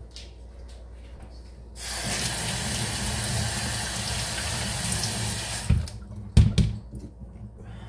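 Kitchen tap running water onto cut potatoes in a strainer: the water starts about two seconds in and stops after about four seconds. A couple of low thuds follow, louder than the water.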